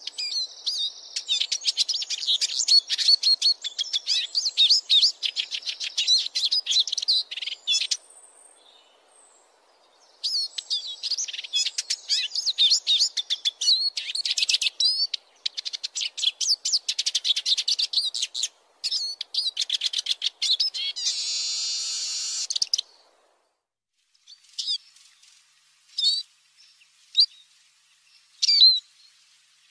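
Eurasian siskin singing: long runs of rapid, high twittering in several bouts, one ending in a drawn-out buzzy wheeze about two-thirds of the way through, then only scattered single call notes.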